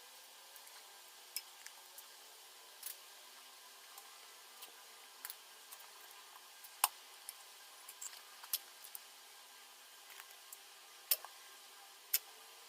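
Scattered light clicks and taps at irregular intervals over a faint steady hiss, the sharpest about seven seconds in and twice near the end.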